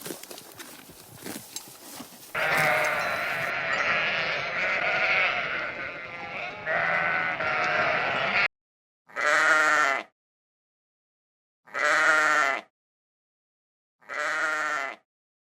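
A flock of sheep bleating, many voices overlapping, starting about two seconds in. After an abrupt cut come three single long bleats, about two and a half seconds apart, with dead silence between them.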